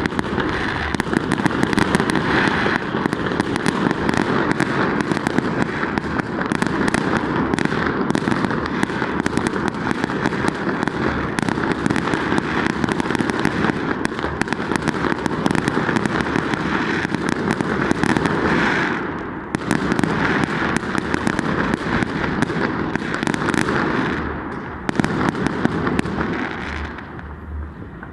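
Fireworks going off in a dense, near-continuous barrage of bangs and crackles, thinning briefly a few times in the last third.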